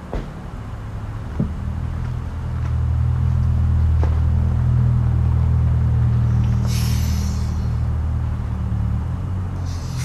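Steady low motor hum that swells a couple of seconds in and eases near the end, with a few light clicks and a short hiss about seven seconds in.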